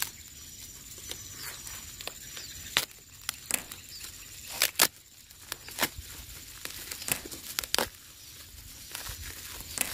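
Black plastic mailer wrapping torn and crinkled open by hand, with several sharp rips and crackles at irregular moments.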